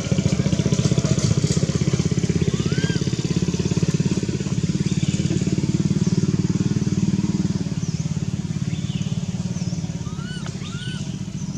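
Small motorcycle engine running steadily at idle, a fast low putter that eases off a little in the second half, with a few short high chirps over it.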